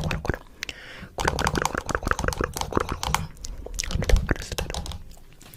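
Close-up chewing and crunching: rapid irregular clicks and crackles mixed with breathy, whispery mouth sounds, easing off near the end.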